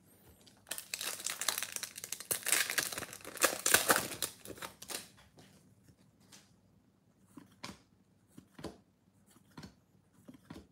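A foil trading-card pack wrapper crinkling and tearing open for about four seconds. Then a few soft separate ticks as the stack of cards is handled and flicked through.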